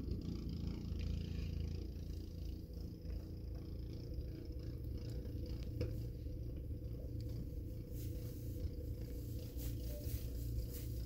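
Gas snow blower engine running steadily as a low, even rumble while it clears snow.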